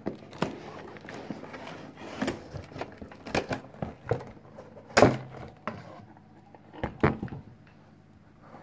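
A cardboard box and a metal computer power supply being handled: irregular scrapes and knocks, with a loud thunk about five seconds in and another about seven seconds in as they are set down on a table.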